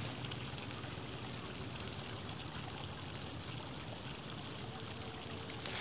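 Faint, steady outdoor background hiss with no distinct events, and a light tick near the end.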